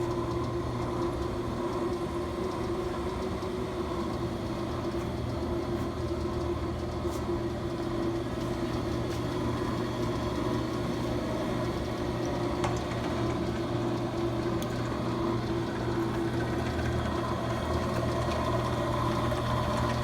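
Ammco 4000 disc and drum brake lathe running, its electric motor and drive giving a steady, even hum.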